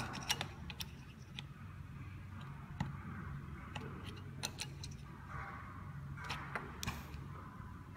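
Small, irregular metallic clicks and ticks as pliers squeeze the metal clips of a glass fuse holder on a refrigerator's control board, over a low steady hum.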